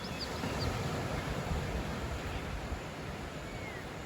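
Steady outdoor background noise: a low rumble under a hiss, with a few faint high chirps near the start.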